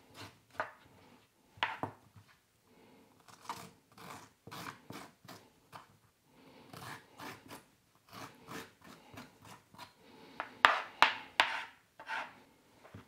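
A metal teaspoon scraping the watery seed core out of a halved cucumber on a plastic cutting board, in short, irregular strokes, with a louder, quicker run of strokes near the end.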